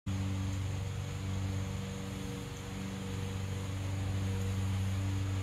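A steady low mechanical hum of an engine or motor running, even in pitch and level, over a light hiss.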